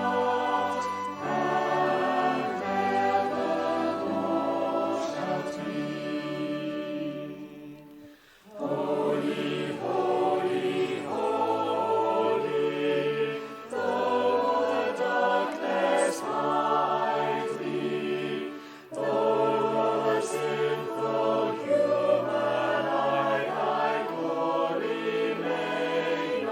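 Choir singing a hymn in sustained chords, phrase by phrase, with a short break about eight seconds in.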